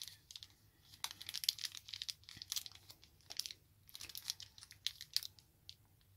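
Small clear plastic packaging bag crinkling as fingers work it open: a run of quick, sharp rustles from about a second in, dying away shortly before the end.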